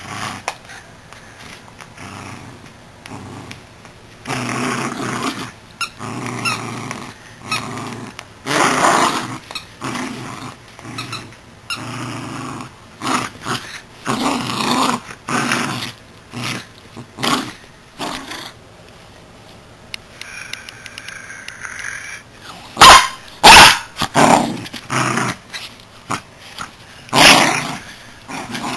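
Miniature schnauzer play-growling in repeated uneven bursts while worrying a plush squirrel toy, with a few much louder, sharp outbursts about two-thirds of the way through.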